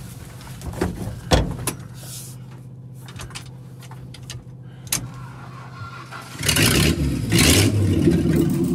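A vehicle engine heard from inside an old pickup's cab as it moves: a steady low hum with scattered rattles and knocks, then the engine gets much louder about six and a half seconds in.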